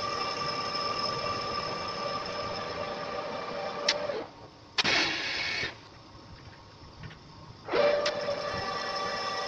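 Manual metal lathe facing an aluminium pulley blank: a steady whine with a high ringing tone from the cutting tool. After about four seconds a click and the cutting tone drop away, with a short loud rush of noise. It stays much quieter for about three seconds, then the cut comes back in with another click and the steady whine resumes.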